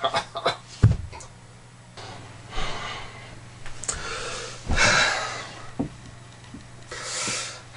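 A man breathing heavily: three long, noisy breaths or gasps, about two seconds apart.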